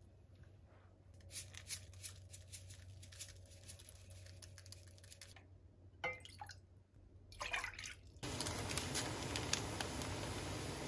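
Faint small clicks at first, then water poured from a metal measuring cup into a frying pan in two short pours. From about eight seconds in, water boiling in the pan: a steady hissing bubble.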